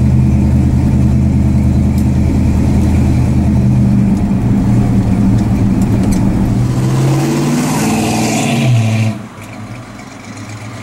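1966 Dodge Dart GT's engine running while driving, heard from inside the cabin, its pitch rising as it accelerates about seven seconds in. Just after, the sound drops suddenly to the quieter engine of the car heard from the roadside as it approaches.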